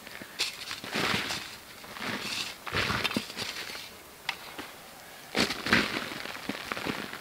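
Irregular crunching and cracking sounds: a handful of sharp cracks and short noisy scrapes spread over several seconds.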